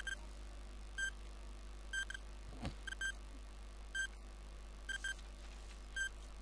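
Quiz countdown timer beeping about once a second: short, high beeps, a few of them doubled, over a low steady hum.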